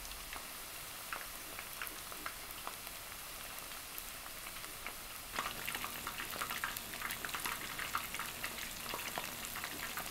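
Karaage, chicken thigh pieces coated in potato starch, deep-frying in hot oil: a steady crackle of small pops that grows denser and louder about five seconds in.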